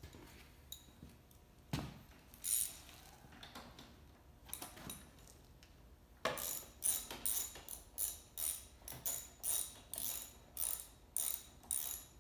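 Ratchet wrench clicking in quick repeated strokes, about two or three a second, starting about halfway through, as bolts at the handlebar are tightened. Before that come a few scattered knocks and clicks of tools being handled.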